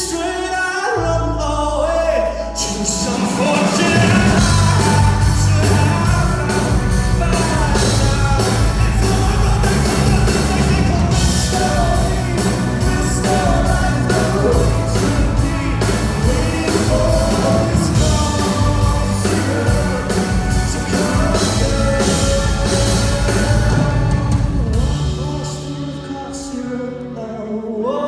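Live rock-pop band playing with a male lead vocal. After a quieter first couple of seconds the full band comes in with a steady beat, and near the end it drops back to quieter held notes.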